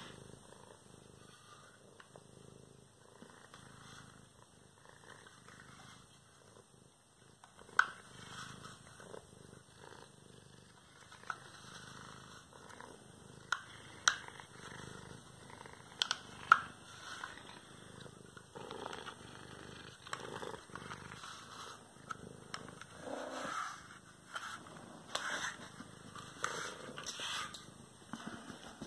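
Domestic cat purring steadily while it rubs against a handheld plastic self-groomer comb, with soft brushing rustles and a few sharp clicks in the first half.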